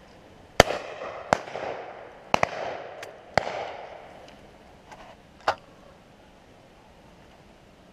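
Shotgun shots: a loud, close report about half a second in that rolls away in a long echo, followed over the next five seconds by about six more reports, most of them quieter and farther off, two of them in quick succession.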